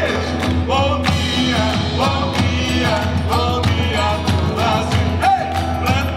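A song: sung melody over instrumental accompaniment with a steady beat.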